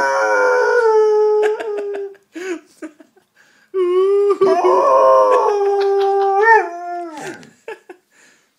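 A Grand Basset Griffon Vendéen and its owner howling together in long held howls. One howl trails off about two seconds in, and after a short gap a second long howl bends up and then drops at its end.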